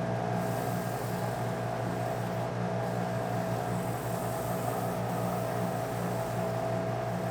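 Small Rikon wood lathe running steadily: a constant motor hum over an even hiss.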